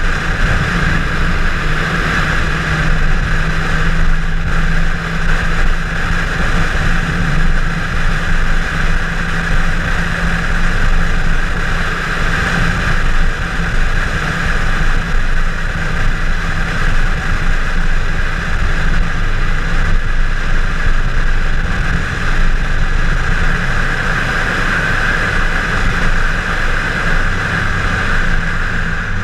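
Chevrolet Camaro 1LE driven at speed on a road course: steady engine and road noise, with no pause or break.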